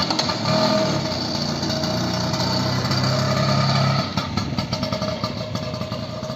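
Bajaj Chetak scooter's two-stroke single-cylinder engine running, its pitch briefly rising and falling near the start. About four seconds in it settles to a quieter, lower-pitched running.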